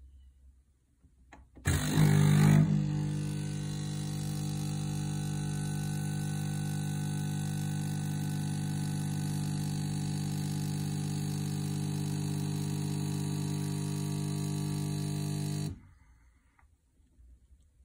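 Coffee machine brewing: it starts up with a louder burst about two seconds in, then buzzes steadily while coffee pours from its twin spouts into the mug, and cuts off suddenly near the end.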